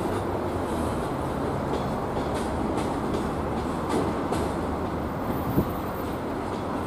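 Freight train of loaded container flat wagons rolling past at steady speed: a continuous wheel-on-rail rumble with light clicks about every two-thirds of a second, and one sharp knock late on.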